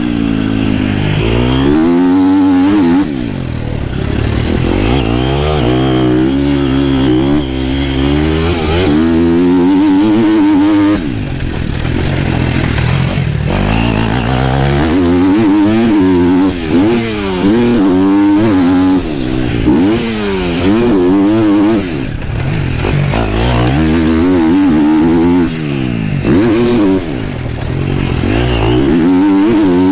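KTM motocross bike's engine revving hard through the gears on a track lap, its pitch climbing and falling again and again, with brief throttle cuts every few seconds.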